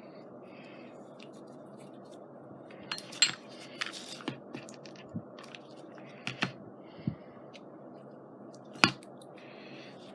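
Handling of paper and stickers: irregular light clicks, taps and rustles, with one sharper tap about nine seconds in, over a steady background hum.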